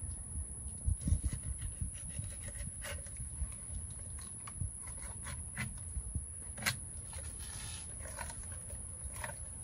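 A fillet knife cutting a large catfish on a wooden board: scattered short taps and scrapes of the blade against flesh and wood, over a steady low rumble.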